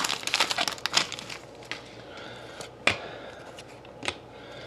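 Shiny trading-card pack wrapper crinkling as it is pulled off the cards, dying away after about a second, then a few sharp clicks and taps as the cards are handled.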